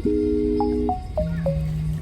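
Lofi background music: a held chord with short plucked notes stepping down in pitch, over a bass note and a steady beat.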